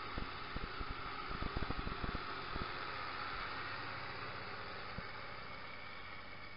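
Zetor 16145 tractor's six-cylinder turbo diesel running steadily under load while pulling a plough, behind a steady hiss. A run of short low knocks comes in the first couple of seconds.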